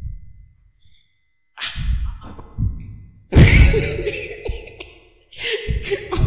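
Wordless human voice sounds: a sigh-like breath, then, after a moment of near silence, louder vocalising with a shifting pitch starting about three seconds in.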